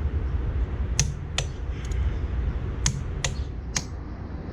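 A handful of short, sharp clicks and clinks of hand tools being handled on the bolts, about six spread over a few seconds, over a steady low rumble.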